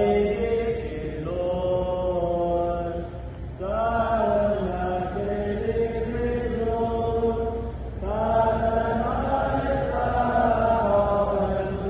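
A group of voices chanting a Chamorro prayer in unison, in long sung phrases of about four seconds, each starting afresh with a new breath.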